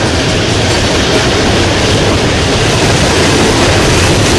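Fully loaded coal hopper cars of a freight train rolling past close by: a steady, loud rumble of steel wheels on the rails.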